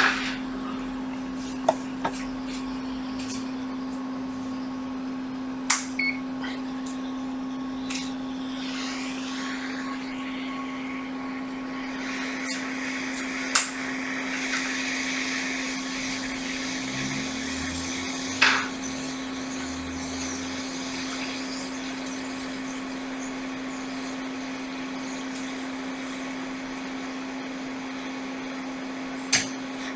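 Steady hum of electronics-bench equipment running, with a few sharp clicks and taps of small tools every several seconds.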